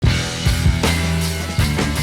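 Rock music with drums and a steady beat.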